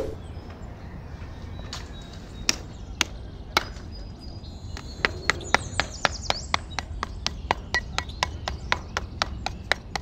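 Small steel trowel tapping on the sand surface of a diorama base, sharp taps: a few scattered at first, then from about halfway a quicker steady run of about three or four a second.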